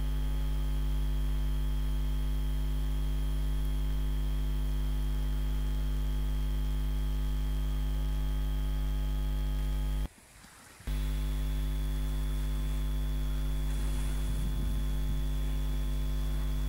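Steady electrical mains hum: a low buzz with a thin high whine above it, cutting out for under a second about ten seconds in.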